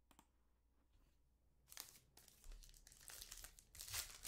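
Foil wrapper of a 2020 Panini Illusions football card pack crinkling and tearing as it is ripped open by hand. It starts a little under two seconds in and is loudest near the end.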